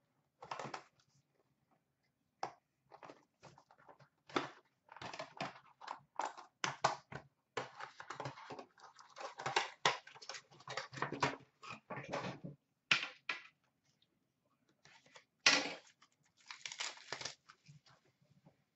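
Plastic wrapping being slit, torn and crinkled off a sealed trading-card box, in irregular bursts of crackling with short pauses.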